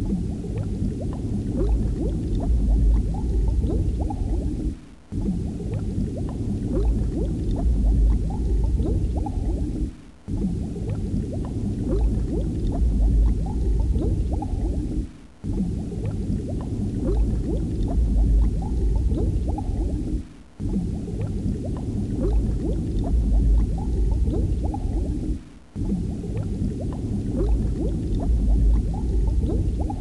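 Muffled bubbling and gurgling water, an underwater ambience looped about every five seconds, with a brief dip in level at each repeat.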